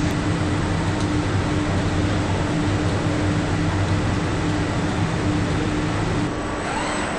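Steady hum of factory machinery with a constant droning tone. Near the end the sound drops a little and a faint whine rises and falls.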